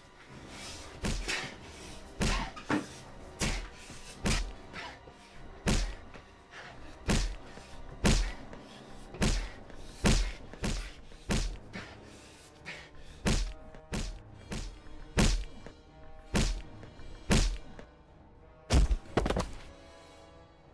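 A beating: a long run of heavy punches landing on a body, about one a second, each a hard thud, with two blows close together near the end. Quiet music plays underneath.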